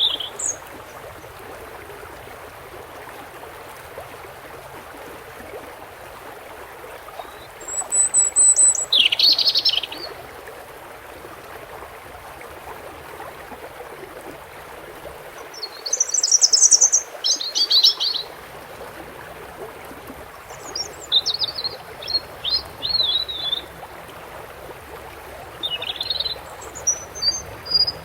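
European goldfinch singing in four short bursts of quick twittering phrases separated by pauses of a few seconds, over the steady rush of running water.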